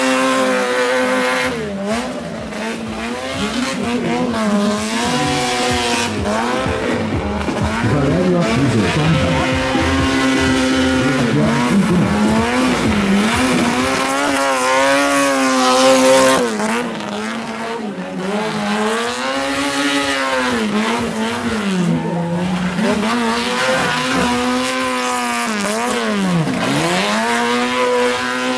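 Tuned Autobianchi A112 Abarth 70HP's 1050 cc four-cylinder engine revving hard, its pitch climbing and dropping again and again as the car accelerates and brakes around cones, with tyre squeal. The revs peak loudest about halfway through.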